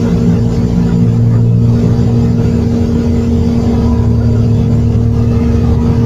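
Refrigerator compressor running on a direct connection with the thermostat bypassed: a loud, steady mains hum. It hums and vibrates yet the fridge does not cool, which the technician takes for a clogged sealed system.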